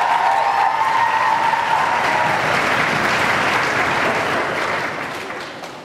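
Audience applauding, with a drawn-out cheer over the clapping in the first couple of seconds. The applause dies away near the end.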